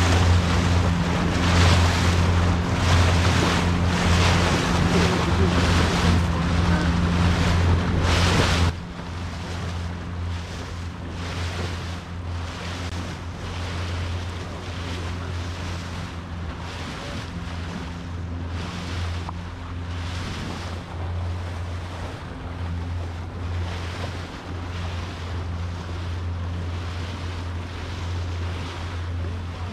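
Boat engine running with a steady low hum, under the rush of wind on the microphone and water along the hull. About nine seconds in the sound drops suddenly to a lower, steady level and the hum carries on.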